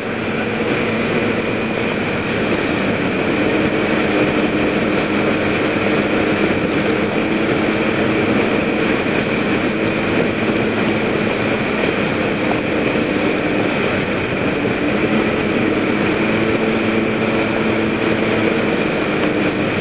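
PGO PMX 110cc (Genuine Rattler) scooter running steadily at cruising speed on the road, its engine note mixed with wind and road noise.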